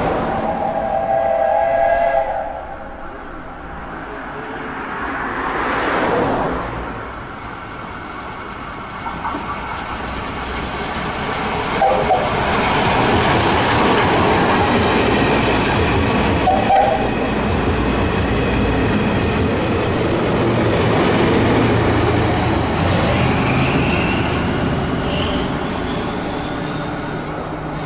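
SL Hitoyoshi steam train heard from inside a passenger coach while running: a steady rumble of wheels on rail with clickety-clack, getting louder after about ten seconds. A short whistle chord sounds at the start, and a rising whine comes near the end.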